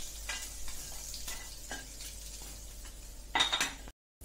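Metal spatula scraping and clinking against a stainless steel kadai as fried puti fish are lifted out of hot mustard oil, over a low sizzle. A louder clatter of metal on metal comes near the end, then the sound cuts off briefly.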